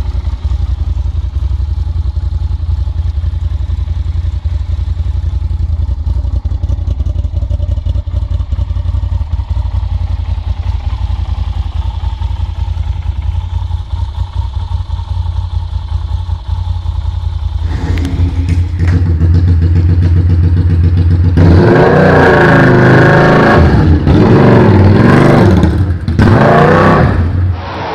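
Yamaha TRX850 parallel-twin engine idling with a steady low exhaust beat, then from about two-thirds in revved hard in repeated rising and falling blips, much louder.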